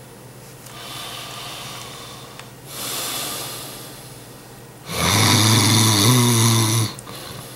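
A man's exaggerated mock snoring, his mouth open: two soft breathy breaths, then a loud, drawn-out snore of about two seconds near the end.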